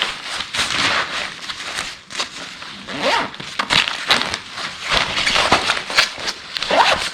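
Rustling and scraping of a fabric backpack being handled and turned over, with scattered short clicks and scrapes.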